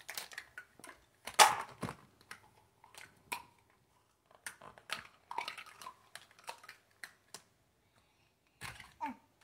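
Plastic toys being handled: scattered knocks, clicks and rustles, with a louder clatter about one and a half seconds in.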